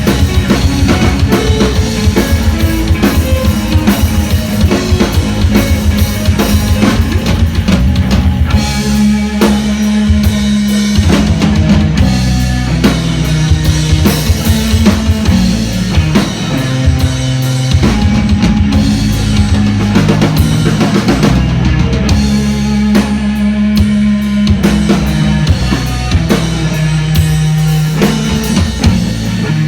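Live rock band playing loudly, with drum kit, bass guitar and electric guitar. The drums hit steadily over bass notes that change every few seconds.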